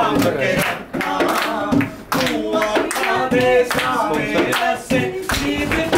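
A group of women singing together and clapping their hands along with the song.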